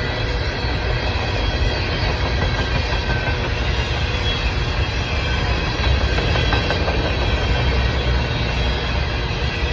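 A train rolling past, a steady, continuous rumble of wheels on the rails.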